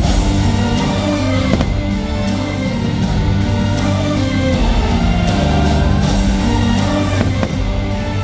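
Loud fireworks-show soundtrack music playing, with a few firework bursts cracking over it.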